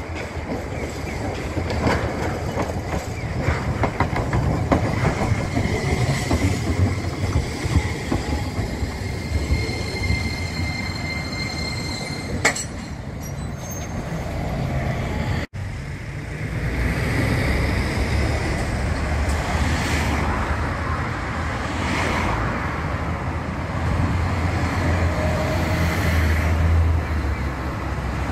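Kagoshima City Tram low-floor Yu-Tram II streetcar running in over the rails with a run of clicks, then a steady high whine as it slows at the stop. After a sudden break about halfway through, road traffic takes over, with a bus and cars passing.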